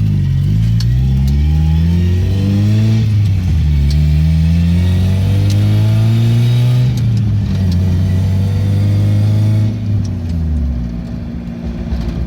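A 1991 Mazda Miata's 1.6-litre four-cylinder engine pulling through the gears: the pitch climbs, drops at an upshift about three seconds in and again about seven seconds in, then falls away as it slows near the end. The car has been sitting a while, and the owners doubt it is firing on all four cylinders.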